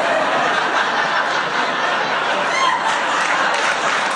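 Sitcom studio audience laughing, a long steady laugh.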